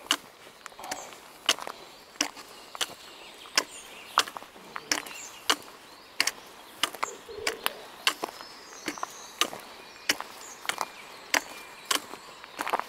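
Footsteps at a steady walking pace, sharp clicking steps about one and a half a second, with birds chirping faintly now and then.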